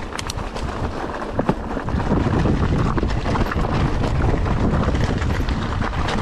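Mountain bike riding down a rough trail: wind buffets the camera microphone and the bike rattles over the ground, with scattered sharp clicks. The noise grows louder about two seconds in as the pace picks up.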